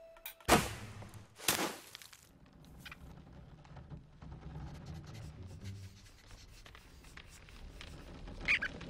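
Cartoon sound effects: two quick whooshes about a second apart, each falling in pitch, then a faint forest ambience with light rustles and ticks, and a couple of short high chirps near the end.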